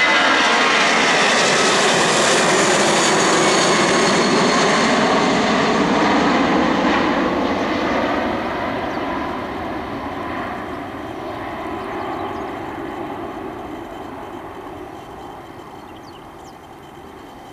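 Airbus A340-311's four CFM56 turbofan engines at takeoff climb thrust as the jet passes overhead: loud jet engine noise whose tones slide lower, then fading steadily from about six seconds in as the aircraft flies away.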